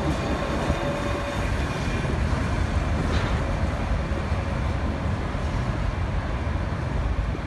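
Steady low rumble of busy city street traffic, with buses passing.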